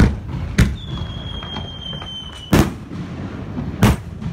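Aerial fireworks: four sharp bangs of shells launching and bursting. A high whistle, falling slightly in pitch, comes in about a second in and cuts off at the loudest bang. A low rumble fills the gaps between the bangs.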